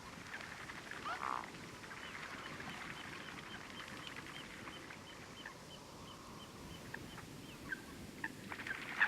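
Wetland animals calling: a short croak about a second in, then a run of short high chirps repeating evenly, with a few sharp clicks toward the end over a faint background hiss.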